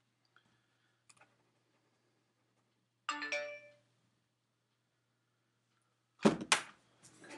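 A few faint clicks, then a short chime-like tone with several pitches about three seconds in that fades within about half a second. Near the end come loud knocks and rustling close to the microphone.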